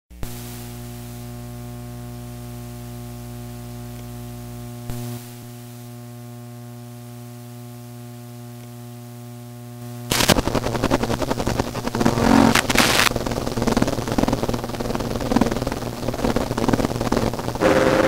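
A steady drone of several held tones, shifting slightly about halfway through. About ten seconds in, harsh noise music starts playing from a lathe-cut 5-inch disc on an EZ Record Maker turntable: much louder, dense and distorted, with sharp louder spikes.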